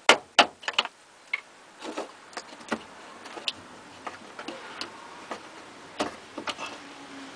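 Irregular sharp clicks and taps, the two loudest in the first half-second, from the fuel pump assembly's plastic lock ring being worked loose by hand and with a screwdriver.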